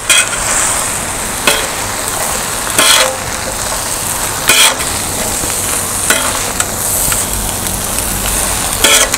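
Shredded roti and egg sizzling on a large flat iron griddle while two metal kothu blades scoop and toss it. The blades clink against the pan every second or two. This is the light mixing stage before the chopping starts.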